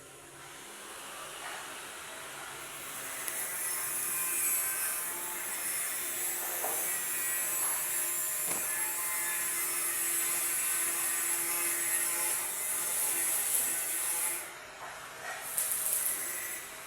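Arc welding: a steady crackling hiss that builds a few seconds in, cuts off about three-quarters of the way through, and is struck again briefly near the end.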